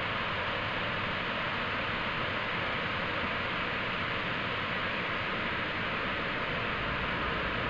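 Steady static hiss, an even rushing noise strongest in the upper-middle range, holding level without change.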